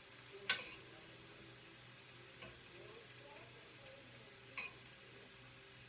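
A few sharp clicks of a cooking utensil against a pan on the stove, a loud one about half a second in and another about four and a half seconds in, over a faint steady hum.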